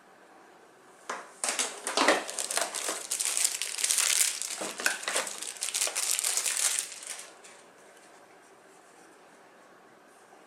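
Packaging crinkling and rustling as it is handled, with many sharp crackles, starting about a second in and stopping about seven seconds in.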